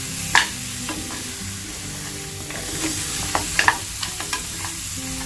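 Metal spatula stirring and scraping mutton trotters in thick masala inside a pressure cooker pot, with sharp clicks as it knocks the pot, over a steady sizzle of the masala frying.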